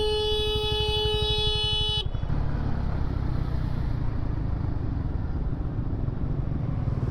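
A vehicle horn held in one long, steady blast that cuts off about two seconds in, sounded as a warning at a vehicle cutting in. Under and after it there is the steady running and wind noise of a Honda CB150R motorcycle in traffic.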